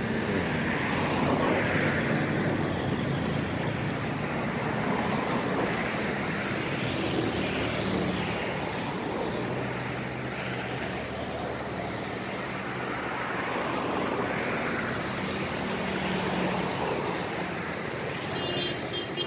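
Road traffic: motor vehicles running and passing, a steady rumble that swells and fades every few seconds.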